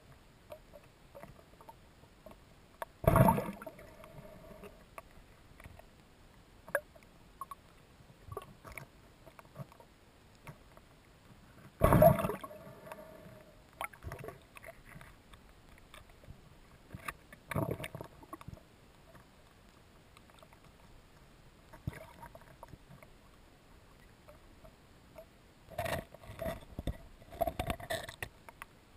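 Underwater recording: loud bursts of bubbling and gurgling, several seconds apart, with faint scattered clicks in the quiet between them.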